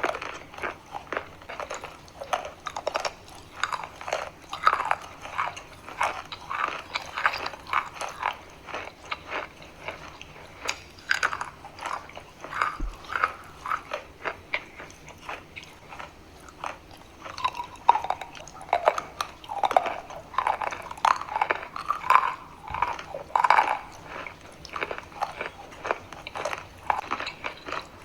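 Chalk being bitten and chewed close to the microphone: a dense, irregular run of crisp crunches with no let-up.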